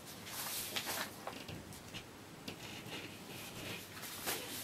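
Printed paper pattern sheets rustling as they are handled and turned by hand, in several soft swishes.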